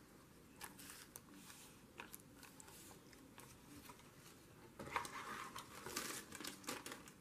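Paper and packaging being handled: faint taps and light rustles at first, then a louder crinkling rustle about five seconds in as a cardboard candy box is pressed onto a journal page and nearby packaging and tissue are moved.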